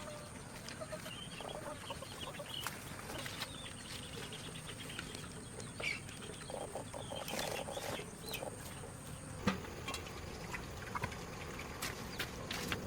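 Chickens clucking, in short scattered calls, among light knocks and clicks. A thin, high steady whine stops about nine and a half seconds in.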